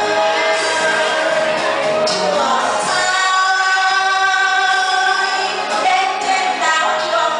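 A woman singing through a microphone and PA over instrumental accompaniment, holding a long note in the middle.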